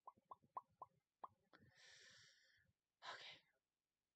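Near silence with faint mouth sounds: about six quick tongue clicks in the first second and a half, then two soft breaths.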